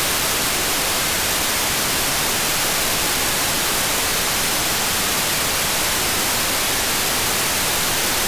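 Steady hiss of FM receiver static from a software-defined radio tuned to the ISS 2 m downlink on 145.800 MHz. The noise is open and unquieted, the sign that no signal strong enough to capture the FM receiver is coming in.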